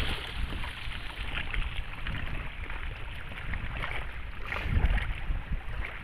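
Sea water sloshing and splashing, with wind rumbling on the microphone. There is a louder burst about five seconds in.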